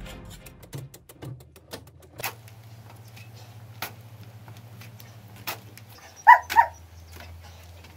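A dog barks twice in quick succession, two short barks that are the loudest sounds here. Around them are scattered sharp knocks and scrapes of hand tools striking and dragging through dry, sandy soil.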